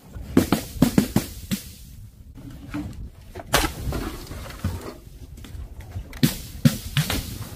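Balloons filled with coloured paint and powder hitting a hard surface and bursting with sharp splats. There is a quick run of hits in the first second and a half, then single hits a second or more apart.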